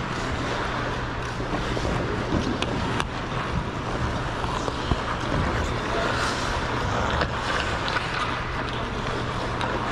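Ice skates gliding and scraping on rink ice, a steady rushing noise with a few light clicks, over a steady low hum.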